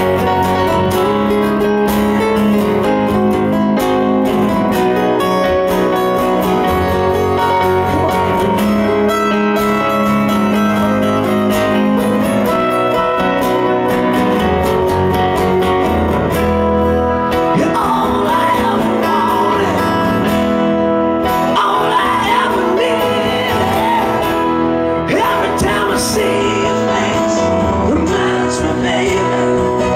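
Live band playing a song on acoustic guitars: strummed acoustic guitar with a steady bass line, and a male lead singer coming in about halfway through.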